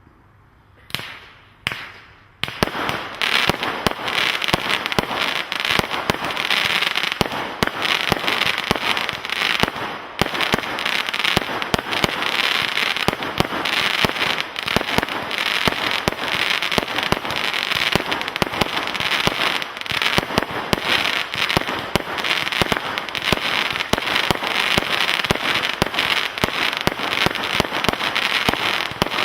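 A 100-shot firework barrage cake firing: two single shots about a second apart near the start, then from about two and a half seconds a dense, unbroken run of rapid-fire bangs over constant crackle.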